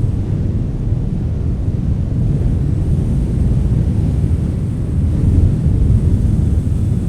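Wind blowing, a steady deep rumble that swells slightly about five seconds in.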